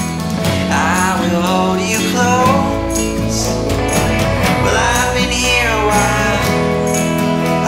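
Background music: a country-style song with guitar and a voice singing.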